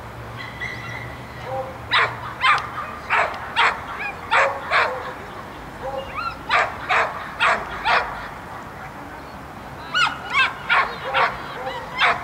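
A dog barking repeatedly: short, sharp barks in quick runs of three to five, with pauses of a second or two between the runs.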